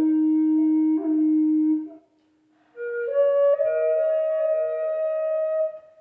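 Wooden Native American flute playing a slow melody: a long low note held for about two seconds, a short breath pause, then a rising phrase that settles on a long held higher note.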